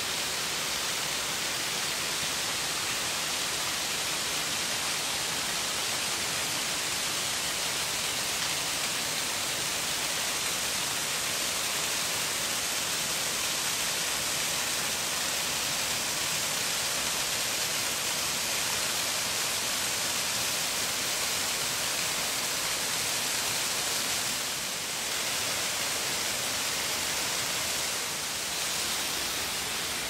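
A 22 m branching waterfall pouring steadily: a constant rushing hiss of falling water that eases briefly twice near the end.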